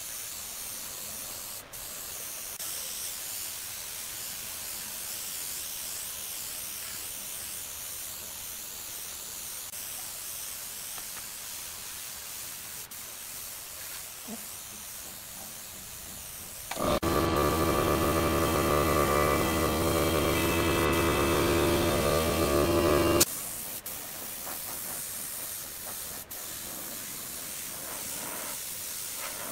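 Gravity-feed spray gun hissing steadily as it sprays finish onto a wooden tabletop. Past the middle, a much louder steady hum with several pitches cuts in for about six seconds and stops abruptly.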